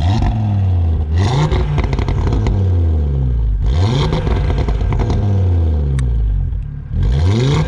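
Audi RS3's turbocharged 2.5-litre five-cylinder revved three times through a newly fitted aftermarket exhaust with its valve open. Each rev climbs quickly and falls back toward idle.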